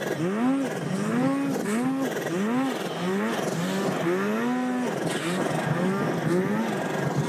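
Two-stroke mountain snowmobile ploughing through deep powder, its engine revving up and falling back in quick repeated swells, roughly one every half second or more, as the throttle is worked on and off.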